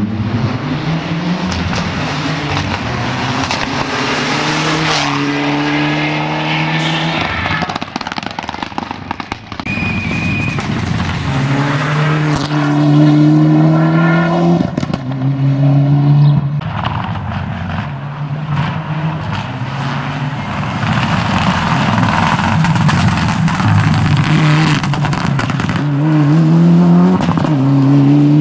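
Mitsubishi Lancer Evo rally car's turbocharged four-cylinder engine at full throttle, climbing through the gears. The pitch rises and drops back at each gear change, again and again.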